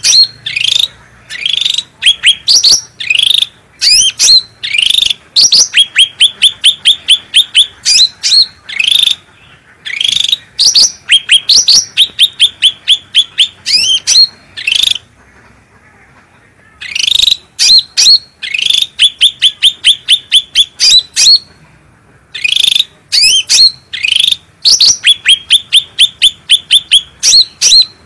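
Cucak rante songbird singing loudly in fast runs of short, clear, repeated notes, about five or six a second, broken by short pauses and one longer break about fifteen seconds in.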